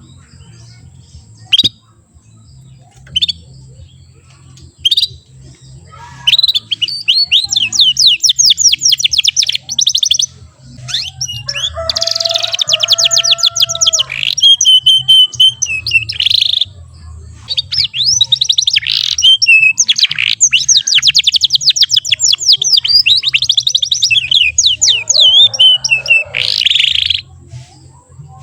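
Young AF canary singing its practice song: three short single chirps, then from about six seconds in long runs of fast, high trills and rolls, broken by brief pauses. It is a juvenile still learning to sing, and its rolls are still short.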